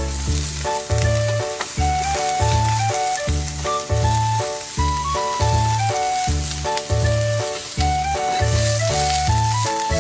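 Yakisoba ingredients sizzling in a hot frying pan, the hiss swelling a little near the end, under background music with a melody and a pulsing bass line.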